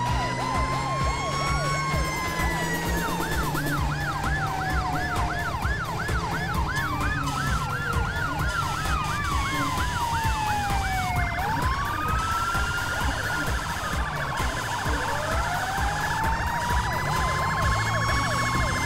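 Emergency-vehicle sirens from a fire engine and an ambulance sounding together: a slow wail rising and falling, overlapped for several seconds by a fast yelp of about three cycles a second. About eleven seconds in, the yelp changes to a rapid high warble, then the slow wail rises again near the end.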